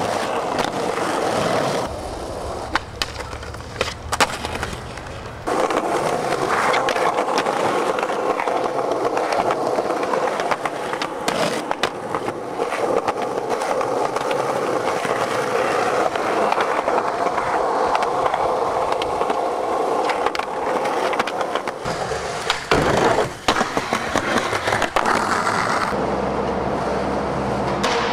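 Skateboard wheels rolling over rough asphalt and concrete, with sharp clacks of the board popping and landing scattered throughout.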